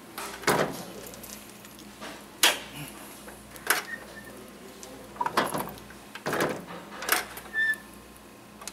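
Hard knocks and clatter from a hot coffee roaster being handled, about six separate hits spread over several seconds above a faint steady hum.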